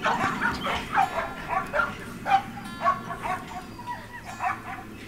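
A pack of Siberian huskies barking and yipping in a quick run of short, excited calls, with faint background music underneath.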